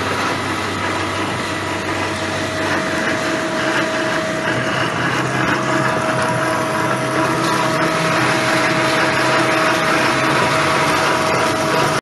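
Bomar STG 220 metal-cutting band saw running: a steady, even machine hum with a constant whine over it.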